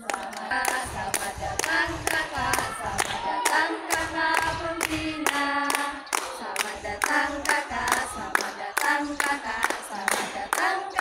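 A group of girls singing together while clapping their hands to a steady beat, about two to three claps a second.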